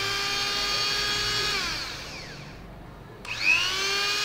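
Electric rotary tool with a flexible shaft attachment running at full speed with a high whine. About a second and a half in it is switched off and winds down; about three seconds in it is switched on again, its whine rising as it spins up to speed.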